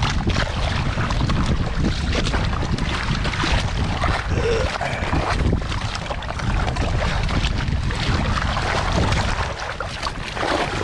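Wind buffeting the microphone, with water splashing along the hulls of kayaks under tow on a choppy sea.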